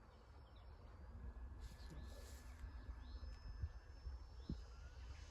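Faint outdoor ambience: wind rumble on the microphone and a few faint, high bird chirps.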